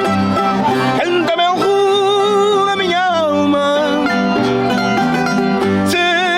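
Folk music: plucked string instruments and an accordion playing along with singing voices.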